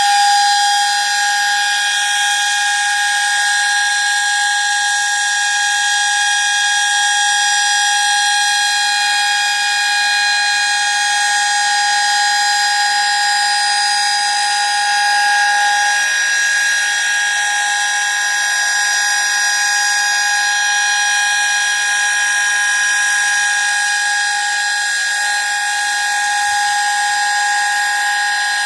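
Sterling Model M dual-rotor electromechanical siren sounding at full speed on its monthly test. It gives a loud, steady chord of several tones that holds its pitch without rising or falling.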